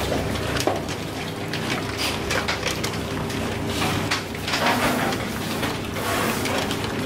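Piglets feeding at a plastic pan feeder: irregular clicks, knocks and rattles of snouts against the feeder and pellets, busier in the second half, over a steady machine hum.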